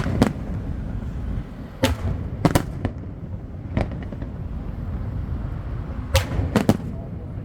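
Fireworks bursting overhead: about nine sharp bangs at irregular intervals, several in quick pairs and triples, over a steady low rumble.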